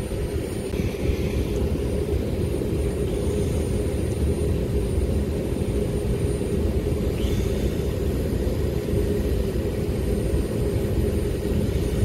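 Steady low machinery hum of running air-conditioning equipment, with a constant mid-low tone in it.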